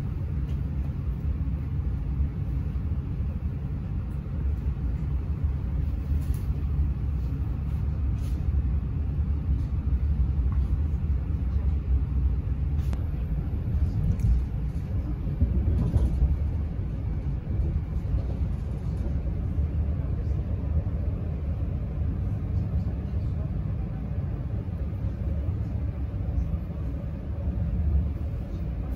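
Trenitalia Blues InterCity train running along the line, heard from inside the passenger cabin: a steady low rumble from the wheels and running gear, with a few faint ticks.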